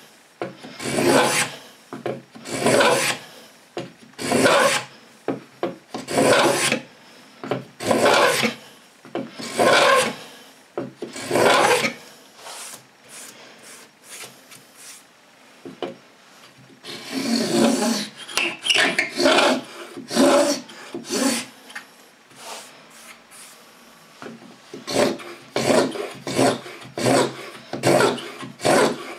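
Lie-Nielsen No. 66 beading tool (a scratch stock) scraping flutes into a small strip of wood in repeated back-and-forth strokes. The strokes come about once a second, then ease off in the middle, then come quicker and shorter near the end.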